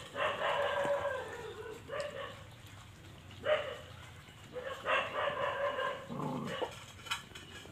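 Dogs whining and yelping in several drawn-out, high calls, the longest about a second in and another after about five seconds.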